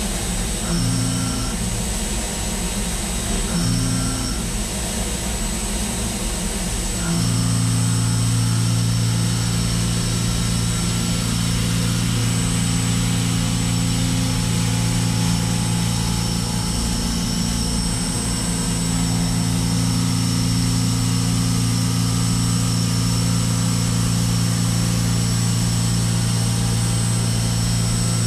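CNC milling machine spindle and end mill cutting Hastelloy X superalloy under flood coolant: full-depth peripheral milling at light radial engagement. There is a steady machine hum with a high whine. It cuts in and out twice in the first few seconds, then settles into a steady, slightly louder cut about seven seconds in.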